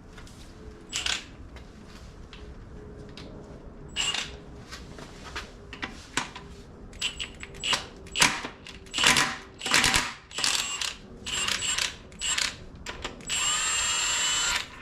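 Powerful impact wrench fired in a series of short bursts to break a bolt loose on the engine's timing components, then run steadily for about a second and a half near the end as the bolt comes off.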